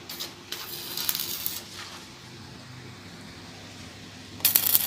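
Stick-welding arc crackling in short bursts, about a second of arc near the start and another near the end, as weld is built up on a broken stud to draw it out.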